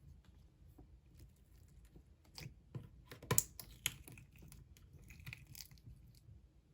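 Slime being pressed and stretched by hand, giving faint, irregular small clicks and pops, with the sharpest click a little after three seconds in.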